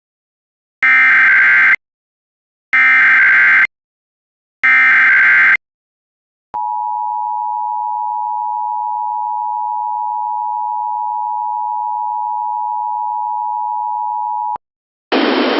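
Emergency Alert System tornado warning: three screeching bursts of SAME header data tones, each about a second long, then the EAS two-tone attention signal held steady for about eight seconds. A hiss of radio static starts just before the end.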